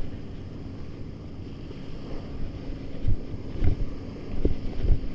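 Wind buffeting the camera microphone, with a few stronger gusts thumping in the second half, over small surf waves washing up on a sandy beach.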